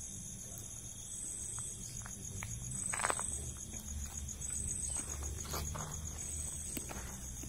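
Insects calling continuously: one gives a high, fast pulsing trill, and another repeats a high call about every second and a half. A few footsteps sound under it, the loudest about three seconds in.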